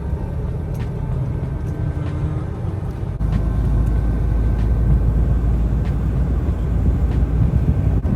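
Heavy truck driving: a steady low engine and road rumble that gets louder about three seconds in.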